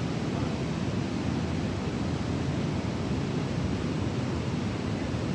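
Waterfall and creek water rushing: a steady, even noise, heaviest in the low range, with no breaks.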